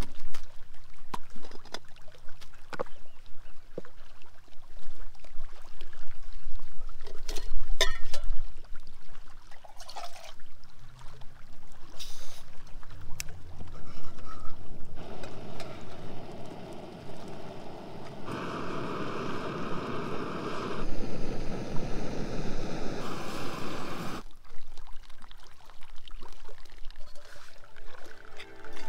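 Backpacking coffee gear being handled on rock: scattered clicks and clinks of a pot, canister stove and water bottle being set out. Then a steady rushing hiss for about nine seconds that cuts off suddenly.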